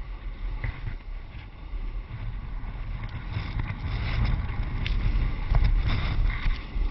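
Wind buffeting a helmet-mounted GoPro's microphone at speed, with a snowboard's edges scraping and hissing over hard snow. It grows louder after about two seconds and is loudest during a hard turn near the end.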